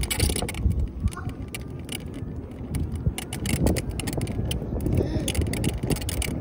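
Rented Veo share bike being ridden on a street: wind buffeting the phone's microphone with a low road rumble, and many quick rattles and knocks from the bike and the phone being jostled.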